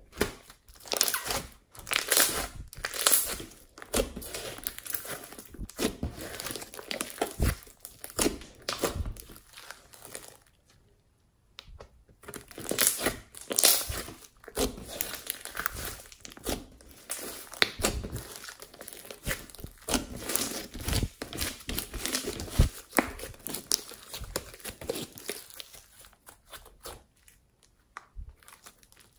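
Hands squishing, stretching and folding a large batch of glossy pink slime: dense, irregular sticky crackles and pops, with a pause of about a second and a half around ten seconds in.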